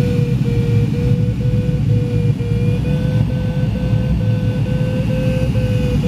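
Glider's audio variometer beeping steadily, about two beeps a second, rising slightly in pitch about five seconds in, over the steady rush of air past the cockpit canopy. The beeping tone signals the glider is in lift.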